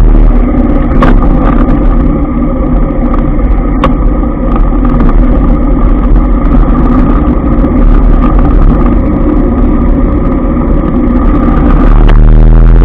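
Motorbike engine running steadily while riding slowly in street traffic, with a low wind rumble on the microphone. Engine and rumble grow louder near the end.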